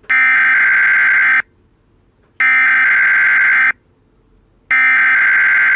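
Midland NOAA Weather Radio app's alert sound at its max setting: three loud, steady electronic beeps, each a little over a second long, with about a second of silence between them. It sounds like a standard EAS alert tone.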